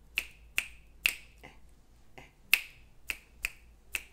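Gum chewing: a run of sharp snapping clicks, about two a second at an uneven pace.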